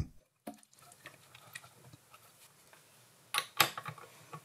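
Faint metal ticks and clicks from a mini lathe's three-jaw chuck and tailstock die holder being turned by hand while threading a stud with a split die, with two sharper clicks about three and a half seconds in.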